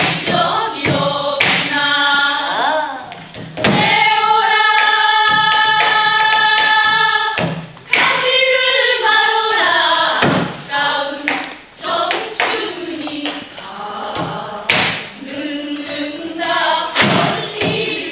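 Group of women singing a Korean traditional folk song together, holding one long note from about four to seven seconds in, with scattered drum strokes beneath.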